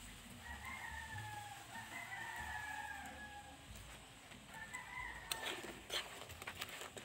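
A rooster crowing, one long call over the first few seconds and a short one about five seconds in, above a faint sizzle of frying oil. A few sharp knocks near the end from a spatula striking the wok.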